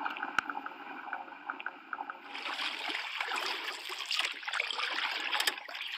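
Water sound effect: soft bubbling with small ticks, then from about two seconds in a louder rushing, splashing water sound.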